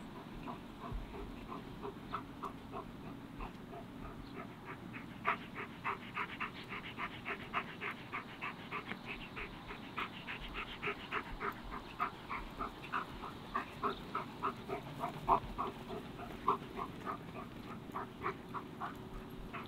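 Black German Shepherd panting fast and rhythmically, about three breaths a second, while heeling.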